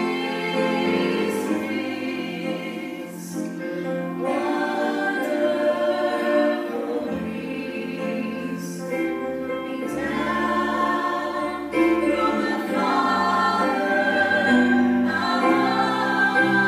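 A worship song sung by women's voices in harmony, with electric keyboard accompaniment and low bass notes underneath.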